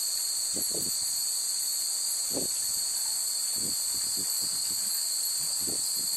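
Steady high-pitched chirring of a chorus of evening insects, unbroken throughout, with a few soft low thuds scattered through it.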